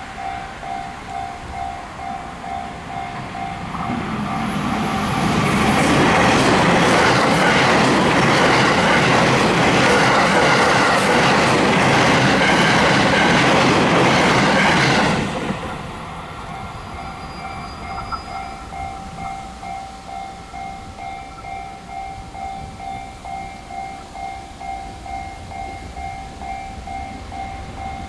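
A Japanese level crossing alarm rings its repeating electronic bell throughout while an electric train passes at speed. The train's rush and wheel noise build from about four seconds in, stay loud for about ten seconds and cut off abruptly, leaving the bell ringing on.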